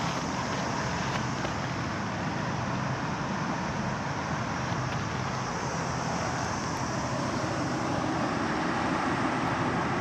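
Steady outdoor background noise at the seaside, an even hiss with a few faint ticks, growing slightly louder near the end.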